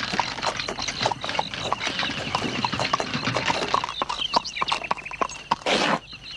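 Horse hooves clip-clopping in a steady walking rhythm, with a high, steady chirping behind them and a short hiss-like burst near the end.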